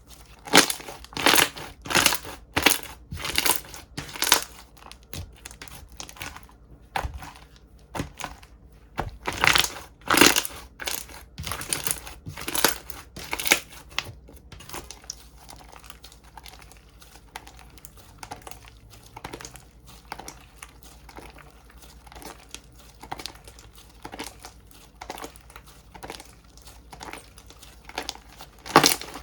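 Slime being pressed and squished by hand, giving runs of short crinkly crackles and pops about two a second, sparser and fainter through the middle stretch.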